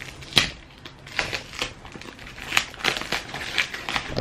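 Packing tape and a paper shipping label being cut and torn off a cardboard box with a blade: irregular sharp rips and scratches, the loudest about half a second in.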